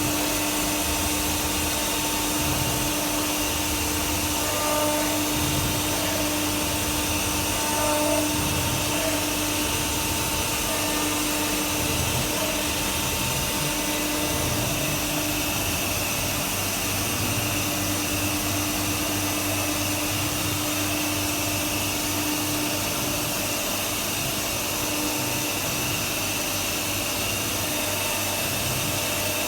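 CNC router spindle running steadily while milling maple wood, a constant whine over a dense hiss with small low rumbles coming and going.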